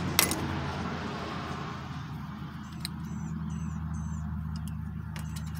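Light handling of a small-engine carburetor and its float bowl: a click just after the start, then quiet movement over a steady low hum. Four short high chirps come in a row near the middle.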